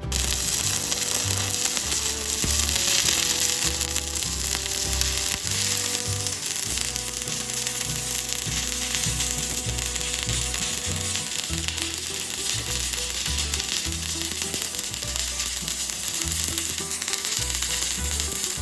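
Stick (arc) welding on steel plate: the electrode's arc crackles and sizzles steadily, striking up suddenly at the start and burning without a break.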